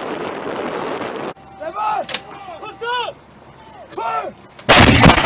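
A steady rush of wind or engine noise cuts off after about a second, followed by a few shouted calls from the gun crew. Near the end comes one very loud artillery gun shot, a single blast lasting about half a second.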